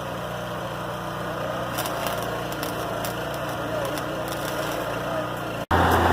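Engine of a portable welding generator running steadily, with faint crackling above it. Near the end the sound drops out for an instant and returns louder, with a stronger low hum.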